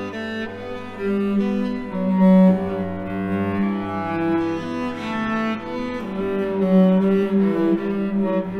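Slow instrumental music: low, held notes that change about every half second to a second, with no beat.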